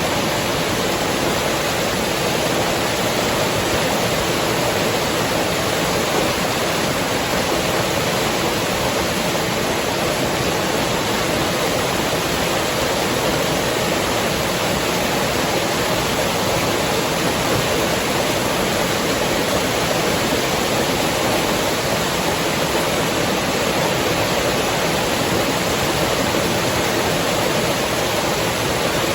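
Steady rushing of river water: an even, unbroken wash with no calls or other distinct sounds standing out.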